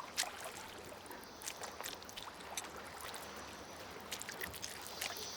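Giant otter eating a fish at the water, with irregular sharp crunching clicks over a faint lapping and trickling of water.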